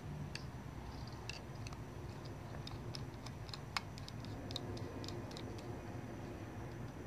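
Scattered small metallic clicks and ticks of a flathead screwdriver seating and turning brass idle jets in Yamaha V-Star 650 carburetors, irregular, with one sharper click near the middle, over a low steady hum.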